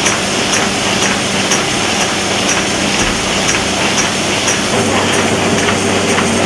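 Sheet-folding machine running, a steady mechanical clatter with a light tick about twice a second.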